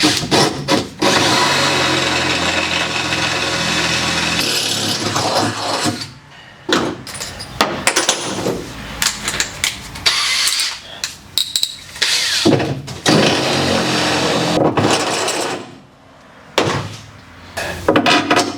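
A power drill running, steadily for a few seconds near the start, then in short bursts with clicks and knocks between them.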